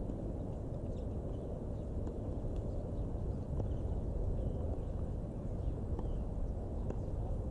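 Outdoor ambience: a steady low rumble, with faint scattered taps and a few short, high chirps.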